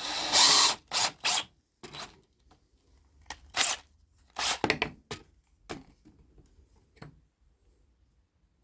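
Irregular short bursts of scraping and rasping handling noise, about nine of them, with the loudest at the start and quiet gaps between: a threaded screw and a piece of wood stock being worked together by hand.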